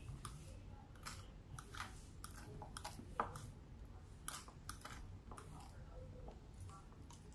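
Plastic fork tapping and scraping on a plate, with chewing: a scatter of faint irregular clicks, the sharpest about three seconds in.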